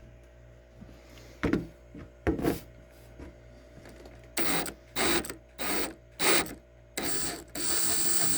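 Power drill with a taper bit running in a series of short bursts, about six in the last four seconds, widening the hole drilled in the bottom of a diesel heater's fuel tank so the fuel fitting will fit.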